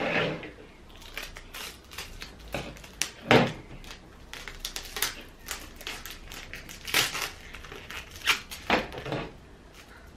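Hands working clear tape, paper and a pair of scissors: irregular clicks, taps and crinkles, with the loudest knock about a third of the way in.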